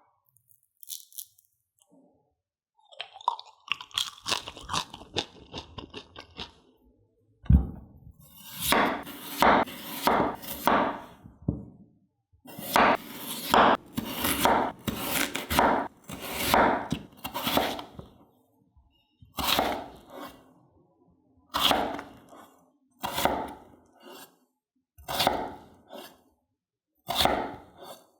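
Hand preparation of raw potatoes in the kitchen: a run of quick scraping strokes, a single heavy thump about seven and a half seconds in, then dense crisp strokes about twice a second. Later the strokes come one at a time, a second or two apart.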